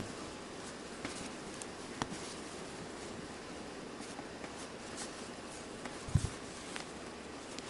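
Light clicks and taps of small knife parts and tools being handled on a work surface, with a soft thump at the start and another about six seconds in.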